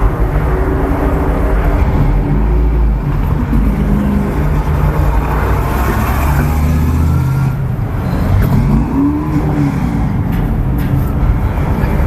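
Race car engine running loudly and steadily, with a brief rise and fall in pitch about nine seconds in.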